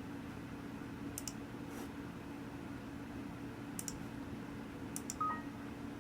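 Computer mouse clicks, in quick pairs three times, over the steady hum of a running desktop PC. A short electronic beep comes about five seconds in.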